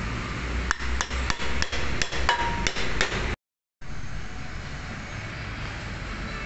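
A quick series of sharp metallic taps and clinks, some with a short ring, from metal tools and parts being worked at a car's wheel hub. After a brief cut to silence, only steady workshop background noise remains.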